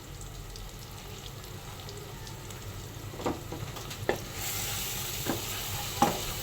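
Onion-tomato masala with freshly added ground spices sizzling in a kadai, the early frying-down (bhuna) stage. A spatula knocks against the pan four or five times in the second half, and the sizzle grows brighter a little past the middle.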